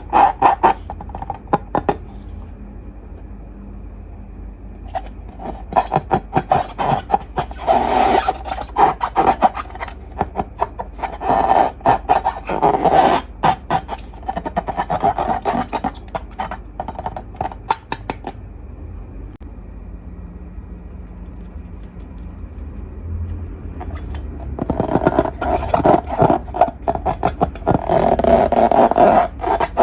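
Hands working slime and rubber balloons: bursts of dense crackling and rubbing, with quieter pauses between them.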